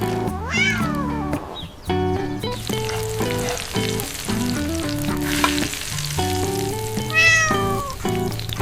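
Two cat meows over background music: one about half a second in that rises then falls, and a falling one near the end.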